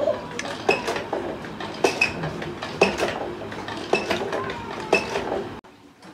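Metal spoon clinking and scraping in a metal bowl of rice, repeated sharp clinks about once a second, several with a short bright ring.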